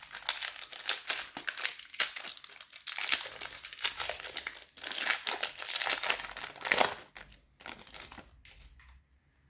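A Pokémon TCG booster pack's foil wrapper crinkling as it is handled and torn open, with dense crackling for about seven seconds that then thins out and fades.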